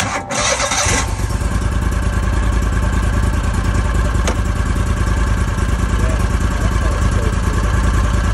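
Argo 750 HDI's engine picking up about a second in and then running steadily, turning the drive pulley and its newly fitted drive belt.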